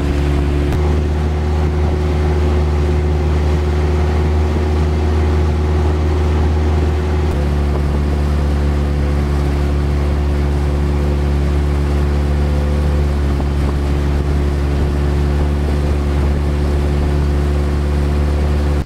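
Wooden riverboat's engine running steadily under way, a loud even hum over a constant hiss of water and wind rushing past. The engine's note shifts slightly about a second in and again about seven seconds in.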